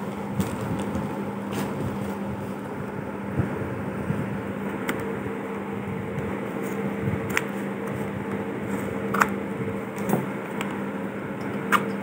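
Steady mechanical hum in the room, with about six short, sharp taps and clicks scattered through it as cardboard paint boxes in plastic wrap are handled.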